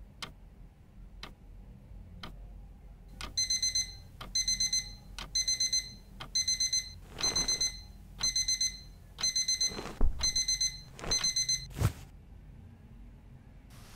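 Analog alarm clock ticking about once a second, then from about three seconds in its alarm beeping in quick clusters of four high tones, roughly one cluster a second, stopping abruptly about twelve seconds in. Bedding rustles several times and there is one thump about ten seconds in.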